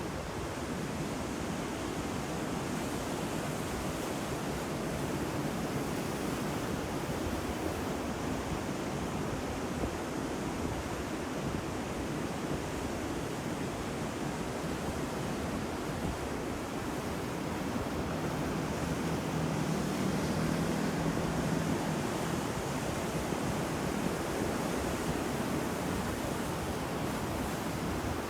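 Ocean waves breaking on a shore as a steady, dense rush of surf, swelling slightly louder in the middle of the stretch.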